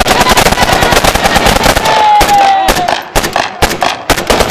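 Celebratory gunfire: rapid shots from several guns overlapping in dense strings of automatic fire. The shooting thins briefly about three seconds in, then picks up again.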